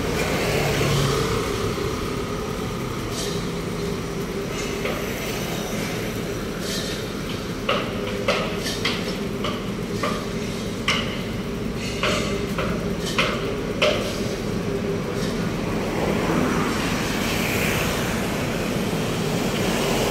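Construction-site noise: a steady hum of traffic and running machinery, with a run of about a dozen sharp knocks, one or two a second, through the middle.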